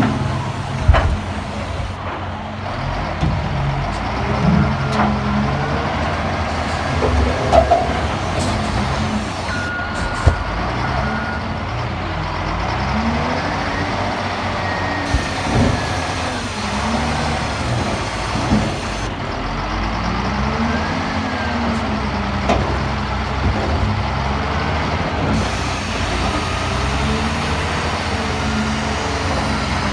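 Heavy diesel machinery engines running and revving up and down under load, with a few sharp knocks and a short steady tone about ten seconds in.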